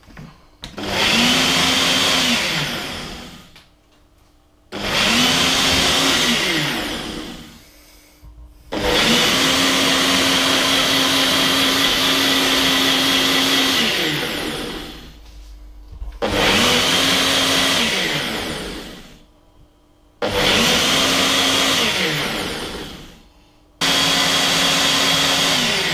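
Nutri Ninja Auto-IQ 1000-watt personal blender running its one-minute auto program, blending a fruit shake. The motor starts and stops in six bursts of a few seconds each, with about a second's pause between them; the middle burst is the longest. Each burst rises in pitch as the motor spins up and falls as it stops, and it is very noisy.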